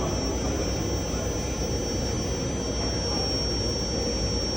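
Cotton candy vending machine running as it spins out cotton candy: a steady whirring hum with a faint high whine.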